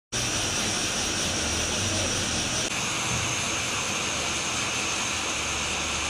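Gas stove burner flame hissing steadily, with a slight change in the sound about two and a half seconds in.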